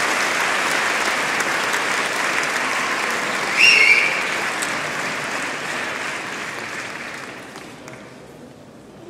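Audience applauding, with a brief high whistle about three and a half seconds in; the applause dies away over the last couple of seconds.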